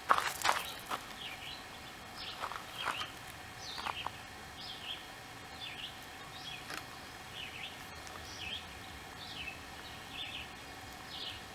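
A couple of sharp knocks right at the start. Then a bird calling over a steady outdoor background: short, high chirps repeated about twice a second.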